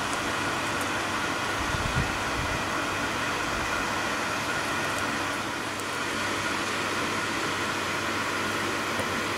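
Inline circulator pump on the primary circuit of a solar hot-water system running steadily: an even hum with a faint whine. Some wind rumble on the microphone in the first two seconds.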